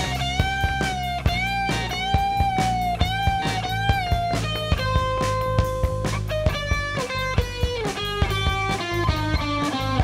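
Live rock band playing an instrumental passage: an electric guitar lead line over bass and drum kit. The lead holds a long bent note with vibrato, then a steady note, then steps down in a descending run near the end.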